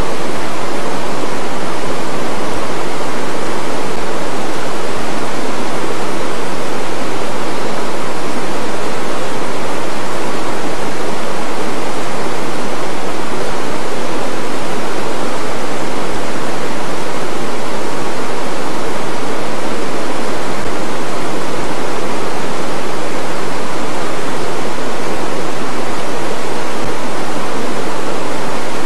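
River water rushing over rocks, loud and steady close to the microphone.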